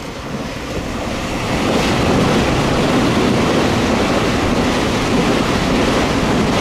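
Taiwan Railway EMU3000 electric express train passing close below at speed: a steady rush of wheel and rail noise that swells over the first two seconds, then holds.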